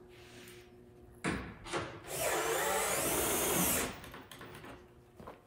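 A power driver runs for about two seconds, tightening a bolt down into a plus nut (rivet nut) in the van floor. Two short knocks come just before it.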